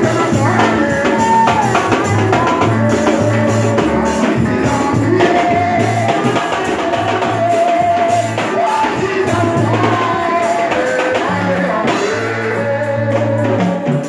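Gospel music: singing over a band with a bass line, drums and tambourine.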